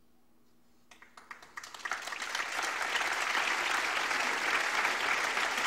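Audience applauding: scattered claps starting about a second in swell into full, steady applause within another second.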